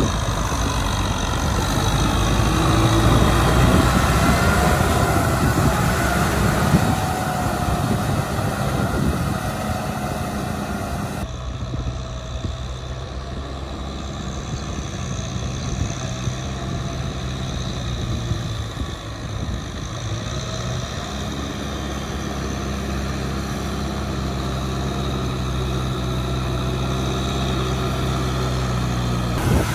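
Kubota M6040SU tractor's diesel engine running steadily while pulling a rotary tiller through a wet rice paddy. The sound changes abruptly about a third of the way in, then runs steadily again.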